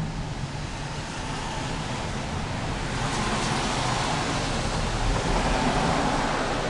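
Street traffic noise: a steady hiss of passing vehicles, swelling a little from about three seconds in.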